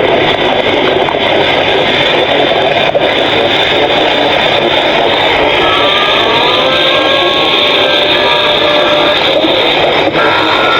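Stomach growling: a loud, continuous dense rumble, with a few drawn-out pitched whines gliding through it in the second half.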